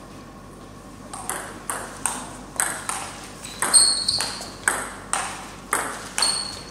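Table tennis rally: the ball clicks in quick alternation off the paddles and the JOOLA table, about two hits a second, starting about a second in after the serve, each click followed by a short echo.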